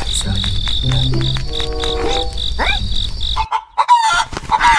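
Crickets chirping in a fast, even pulse, which cuts off suddenly about three and a half seconds in. A rooster crowing follows near the end.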